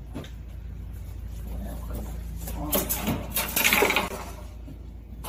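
Packaging being handled on a strapped, shrink-wrapped pallet: a burst of rustling, crinkling and clattering from about two and a half to four seconds in, over a steady low hum.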